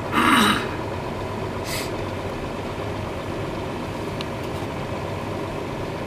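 Steady engine and road noise heard inside a moving vehicle's cab, with a short, loud burst of sound right at the start and a brief hiss just under two seconds in.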